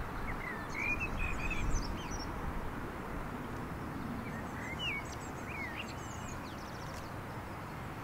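Outdoor ambience of small birds calling in short whistled chirps over a steady low background rumble. The chirps come in two clusters: in the first two seconds and again about four and a half to five and a half seconds in.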